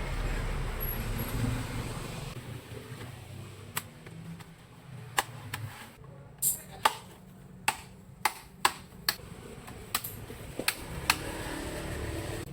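Plastic bottom case of an Acer Z1402 laptop being pried off its clips: about a dozen sharp clicks and snaps at uneven intervals, after a low rumble that fades about two seconds in.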